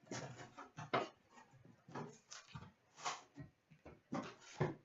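Card packaging being handled and opened: a string of short, irregular rustling and crinkling bursts as a box of 2016-17 Upper Deck Series 1 hockey cards and a pack are torn into.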